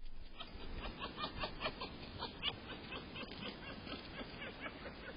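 An unidentified wild animal giving a rapid series of short, high calls, about five a second, louder in the first half and fading toward the end.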